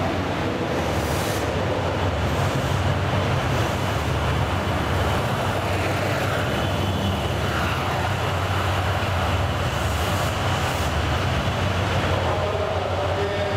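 The Seven Stars in Kyushu cruise train moving past along the platform, its DF200-7000 diesel-electric locomotive's engine running with a steady low drone over the rumble of wheels on rails.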